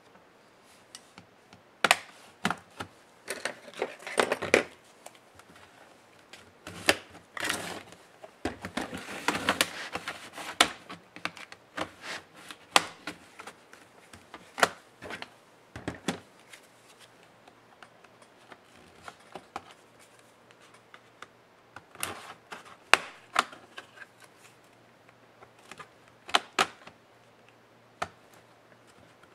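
Irregular clicks, knocks and scrapes of a Lenovo IdeaPad Flex 14 laptop's plastic and metal case being handled on a bench, turned over and its lid opened. There are two longer stretches of denser scraping, one a few seconds in and one around the middle.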